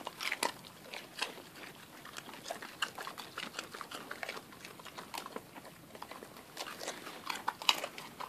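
Huskies chewing raw carrots: a run of irregular, crisp crunches.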